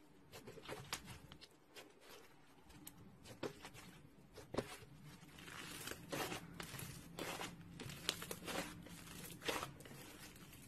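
Slime being worked by hand: scattered sharp clicks and pops, with denser crackling stretches from about five seconds in.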